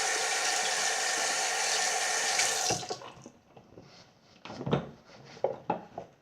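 Tap water running steadily into a sink while hands are washed, shut off about three seconds in, followed by a few light knocks and clatters.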